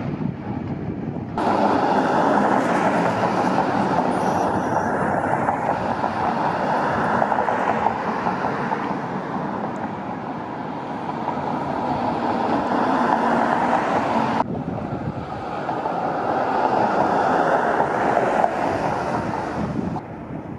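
Steady rushing vehicle noise that swells and fades, with abrupt jumps in level twice.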